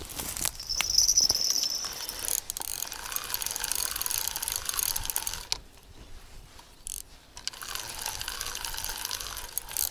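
Feeder spinning reel being cranked to wind in line, in two spells with a quieter pause of about two seconds between them, its whirr wavering with each turn of the handle. About a second in there is a brief, louder whoosh.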